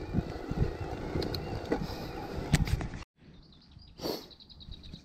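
Mountain bike riding over rough, bumpy grass: a steady rumble of wind and tyre noise with scattered rattles and knocks. It cuts off abruptly about three seconds in, and a much quieter stretch follows with one short burst and then a quick, even run of faint high ticks.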